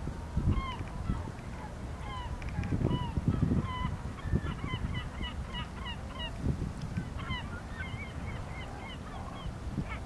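Gulls calling over and over: many short, clipped calls in quick runs, busiest in the middle of the stretch. Irregular low rumbles run under them.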